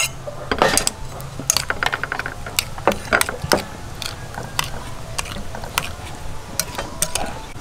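Metal spoon stirring a chunky garlic-and-chilli sauce in a ceramic bowl, clicking and scraping against the bowl in irregular sharp knocks, a few louder ones in the first half.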